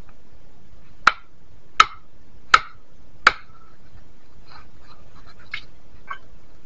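Four sharp knocks evenly spaced about three-quarters of a second apart, followed by a few fainter clicks.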